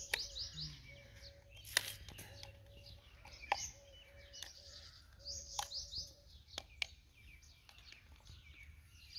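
Small birds chirping in quick repeated trills, with a few sharp clicks and taps from the plastic trimmer-line spool and head cover of a brush cutter being handled; the loudest clicks come about two and three and a half seconds in.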